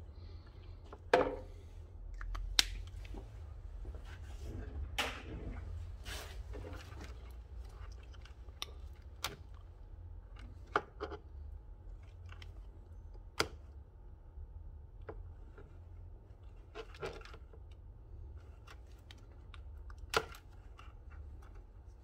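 Scattered clicks, taps and short scrapes of tools and small plastic parts being handled while a Bluetooth speaker is taken apart, with a few sharper clicks standing out. A low steady hum runs underneath.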